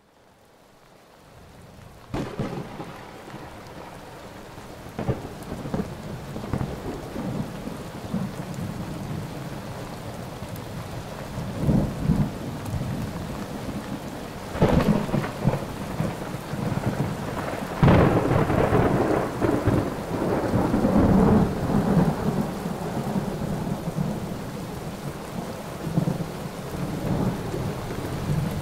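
Steady heavy rain with repeated rolls of thunder, fading in from silence at the start. The loudest thunder comes about 15 and 18 seconds in and rumbles on for several seconds.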